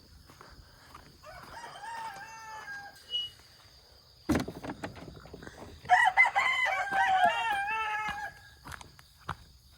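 Rooster crowing twice: a fainter crow about a second in, then a louder, longer crow past the middle. A sharp knock falls between the two crows.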